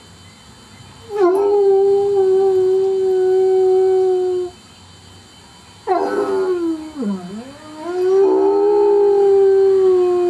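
Hound dog howling: one long howl held at a steady pitch, then after a short pause a second howl that swoops down in pitch and back up before holding steady again.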